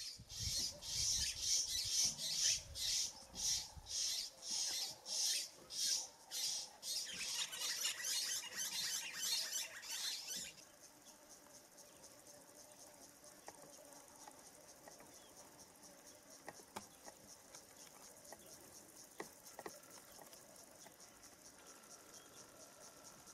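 Insect chorus in the bush: a high-pitched pulsing chirring, about two pulses a second, that cuts off abruptly about ten seconds in, leaving a quieter, steady high trill with a few faint clicks.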